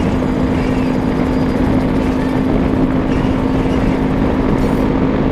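Yamaha Ténéré 250's single-cylinder engine holding steady cruising revs through an aftermarket sport exhaust tip, a steady even drone over wind and road noise at highway speed.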